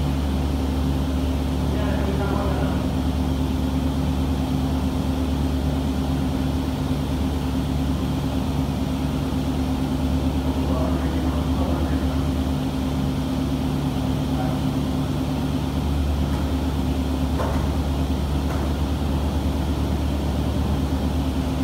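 Sliding-table panel saw running with a steady, loud drone and hum.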